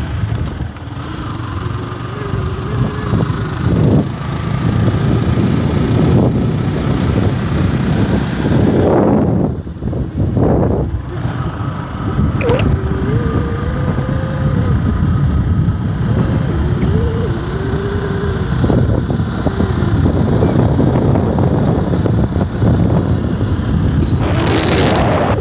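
Yamaha R15's single-cylinder engine running as the motorcycle is ridden, with wind buffeting the microphone. The engine note rises and falls slightly midway.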